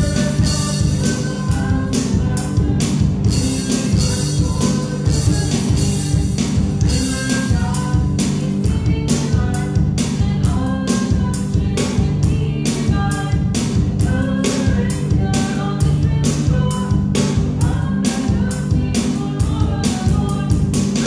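Worship band playing an upbeat song, with a steady drum-kit beat under singing voices.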